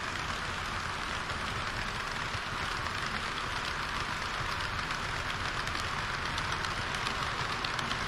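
HO-scale model trains, a string of tank wagons and a KiHa 40 railcar set, running close past: a steady rattling hiss of metal wheels on the track, with quick clicks over the rail joints that grow denser toward the end.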